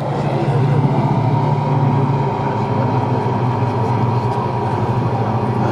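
Rolls-Royce Merlin V12 engines of three Supermarine Spitfire Mk I fighters flying past in formation: a steady drone that swells in the first second and then holds.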